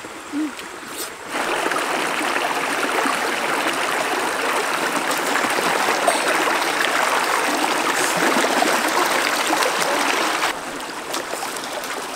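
Shallow river water running over rocks, a steady rushing that grows suddenly louder about a second in and drops back sharply near the end.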